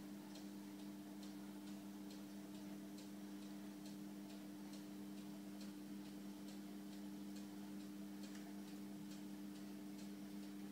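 Faint steady hum of the reef aquarium's running equipment, with light clicking at about three ticks a second over it.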